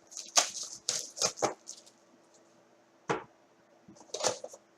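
Trading card box being opened by hand: its plastic wrapper and cardboard give a string of short, sharp crackles and taps, in a cluster in the first second and a half, once about three seconds in and again near the end.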